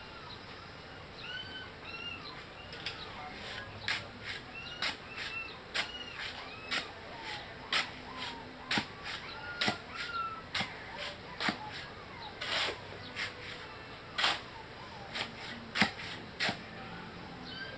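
Sharp knocks of a long-handled digging tool being driven repeatedly into the ground, roughly two strikes a second, starting about four seconds in and stopping near the end. Birds chirp throughout in the background.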